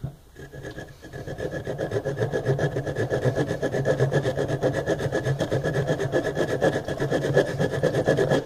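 Small folding saw blade of a Coghlan's army-knife multitool cutting through a thick piece of wood in quick, steady back-and-forth strokes, several a second. The sawing stops abruptly near the end.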